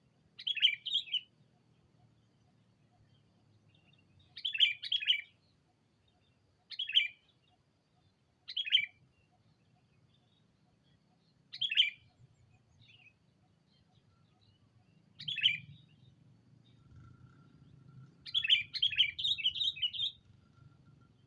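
Sooty-headed bulbul (kutilang) calling in short, bright chirping phrases that repeat every few seconds, with a longer run of quick notes near the end: a decoy bird calling out to rival bulbuls.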